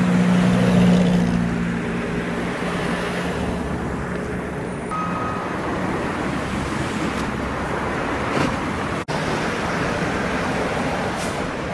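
Street traffic noise: a steady wash of passing road traffic, with a low engine hum standing out for the first couple of seconds. The sound drops out sharply for an instant at about nine seconds.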